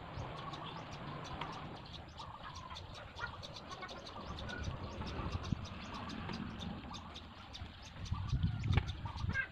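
Outdoor ambience: a fast, steady run of short, high chirps from insects, over a low rumble that grows louder near the end.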